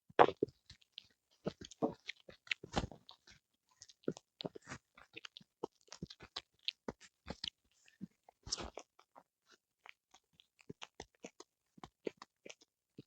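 A small Pomeranian–Spitz mix dog chewing a whole eel: an irregular run of short, wet clicks and crunches as its teeth work through the flesh and bones, with louder bites near the start, about three seconds in and about eight and a half seconds in.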